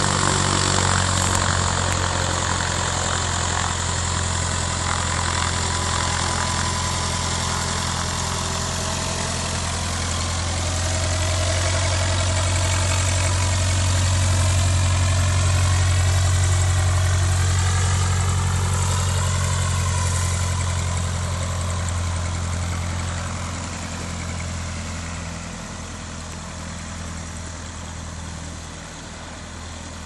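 Cessna 150's four-cylinder piston engine and propeller running steadily at low taxi power as the plane rolls over grass. It grows louder as the plane passes close about halfway through, then fades as it moves away.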